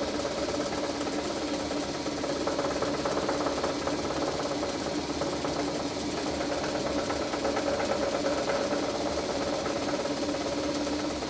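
Metal lathe running with no load at about 1,000 RPM, a steady mechanical hum from its motor and drive.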